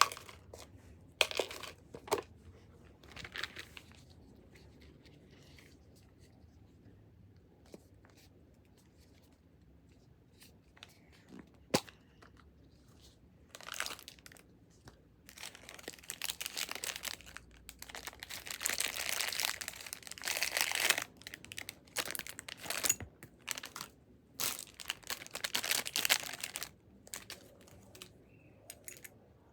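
Wrapping on a surprise egg being torn and crinkled in irregular bursts, with quiet pauses between; the longest stretch of rustling comes about two-thirds of the way through.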